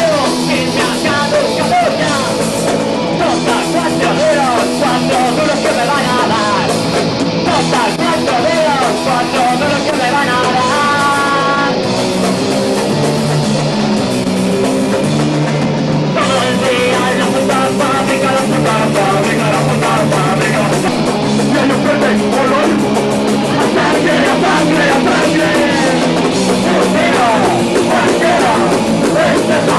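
Rock band playing live, electric guitar and drums loud and without a break.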